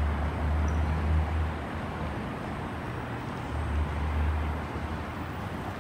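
Road noise of a car driving on a highway: a steady tyre hiss with deep rumbling swells, twice.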